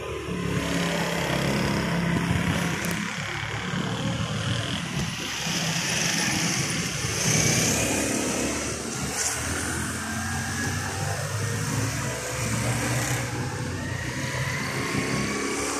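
Street traffic: motorcycle and car engines running and passing, with an engine rising in pitch as it speeds up about halfway through and again near the end.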